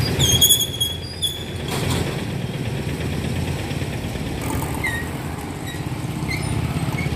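Street traffic: a steady low engine rumble from motor vehicles such as an auto-rickshaw, motorbikes and a truck, with a string of short high squeaks in the first second or two and a few fainter ones later.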